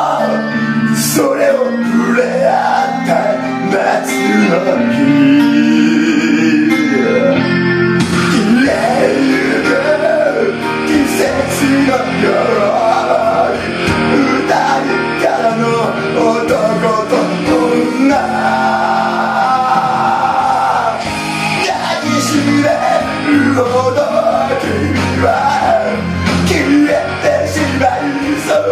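A man singing karaoke into a handheld microphone over a backing track.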